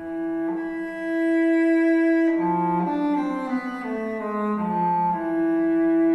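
Solo cello music: a long held bowed note, then a falling run of notes, then back to the held note.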